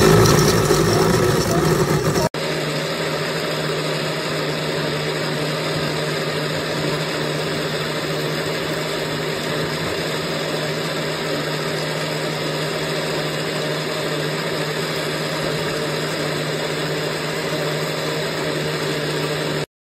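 Cuisinart SmartPower Duet blender's motor running steadily as the blades churn a liquid blend. A brief break about two seconds in leads into a second, even run with a strong low hum.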